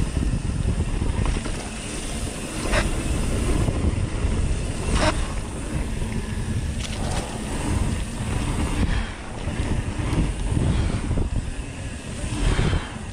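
Wind buffeting the microphone over the steady rumble of mountain-bike tyres on a dirt trail, with a few sharp clacks as the bike rattles over bumps.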